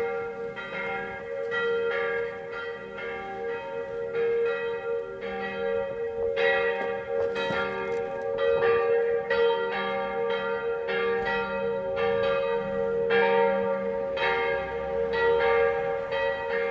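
Church bells ringing: several bells struck one after another, about two strikes a second, their ringing overlapping into a steady hum.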